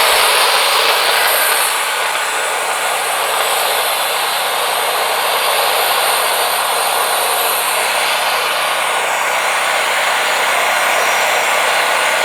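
Wood-Mizer LT40 band sawmill running with its blade cutting through a pine log: a steady, even saw-and-engine noise with a constant low hum, as the log is squared down to an 8x8 cant.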